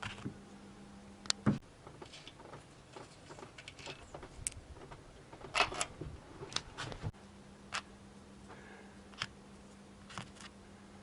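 Scattered metal clicks and clinks of a socket wrench and loose parts as the camshaft bearing-cap nuts are undone and the caps lifted off a cylinder head. The loudest knock comes about a second and a half in, with a low steady hum behind.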